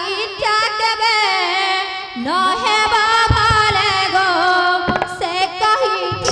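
A female voice singing a slow, ornamented melody with long wavering held notes. The singing is accompanied by instruments, with a couple of low drum strokes.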